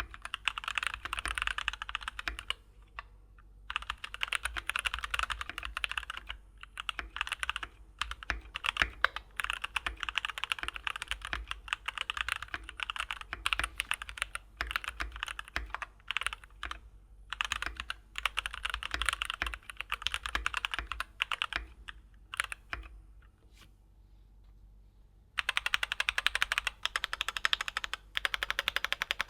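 Keychron K6 Pro mechanical keyboard with Keychron K Pro Brown tactile switches being typed on: fast runs of keystrokes broken by short pauses, with a longer lull about three quarters of the way through.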